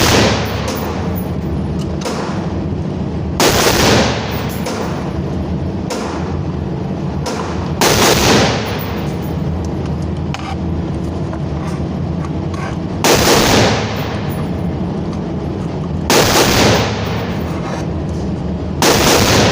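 Five single gunshots, fired a few seconds apart at an uneven pace, each ringing on for about half a second, over a steady background noise.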